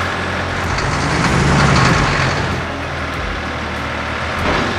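Vehicle engine sound effect, a steady running drone that swells briefly about a second and a half in.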